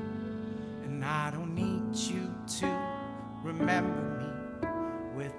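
Indie band music with acoustic guitar, piano and viola: an instrumental passage of sustained, wavering notes over plucked guitar.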